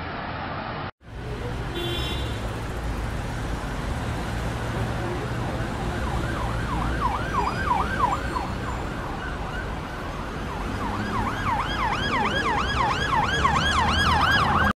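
Emergency vehicle siren in fast yelp mode, its pitch rising and falling about three times a second over a low city traffic rumble. It starts about six seconds in, fades, and returns louder near the end. Before that, road noise from a moving vehicle cuts off abruptly about a second in.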